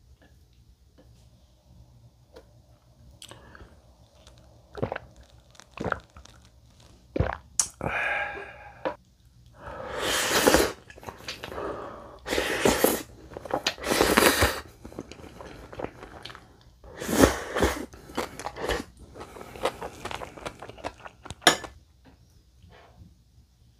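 Close-miked eating: Jjapagetti black-bean instant noodles slurped and chewed straight off a tilted plate as chopsticks push them in. A run of loud bursts of mouth noise comes in the middle, with quieter chewing and small clicks around them.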